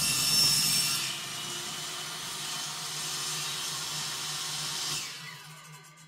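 Table saw cutting through plywood on a crosscut sled, the cutting noise ending about a second in. The saw keeps running with a steady hum, then is switched off about five seconds in and winds down.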